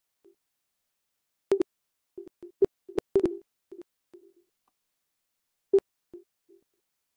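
Short electronic beeps at one steady low pitch, coming at irregular intervals, several of them with a sharp click.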